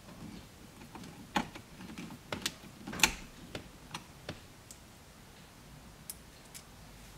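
Hand screwdriver driving small screws into a phone-mount bracket: irregular light clicks and ticks, busiest in the first half, with one sharper click about three seconds in.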